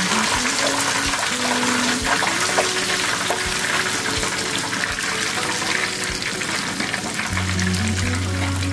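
Breaded pork cutlet rolls deep-frying in hot oil, sizzling steadily with a fine crackle. Background music with held notes plays underneath, and a low steady tone joins near the end.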